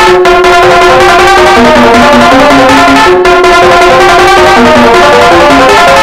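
Loud music remix built from pitched copies of an emergency alert alarm tone: a long held note under a stepping melody, in D minor, with two very brief dropouts, near the start and about three seconds in.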